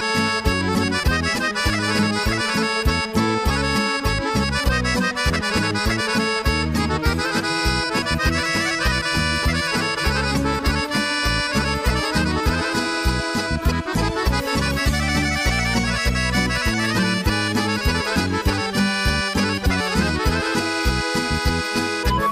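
Serbian folk music instrumental: a Dallapè chromatic button accordion plays the melody over a steady rhythmic backing of bass and keyboard.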